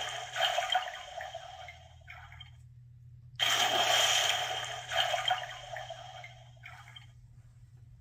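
An electronic sound book's small speaker playing a recorded rushing-water sound effect. It ends about two and a half seconds in, then plays again from the start about a second later and fades out.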